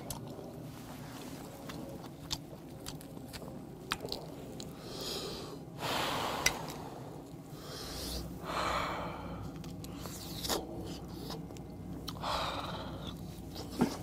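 Close-up chewing and wet mouth noises of a man eating a grilled oyster, with a few louder breathy bursts and scattered sharp clicks.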